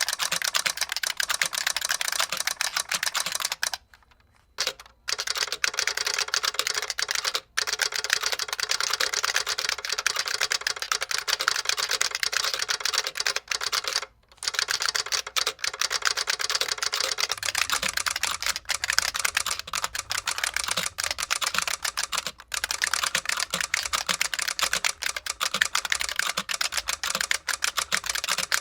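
Fast typing on an IBM Model F 62-key buckling-spring keyboard with its solenoid firing on each keypress: a dense, rapid clatter of clicks. It breaks off briefly about four seconds in and again about fourteen seconds in.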